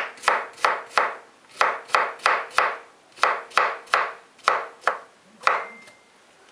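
Chef's knife slicing a cucumber on a heavy polyethylene cutting board: crisp chops about three a second in short runs, each a knock of the blade on the board with the crunch of the cucumber, stopping about five and a half seconds in.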